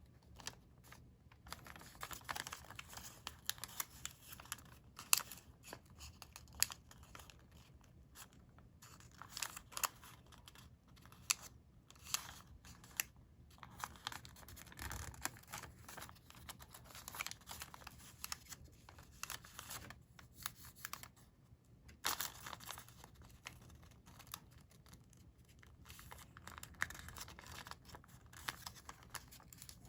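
Colored origami paper being folded and creased by hand: irregular rustling and crinkling with short, sharp crackles, broken by a few brief pauses.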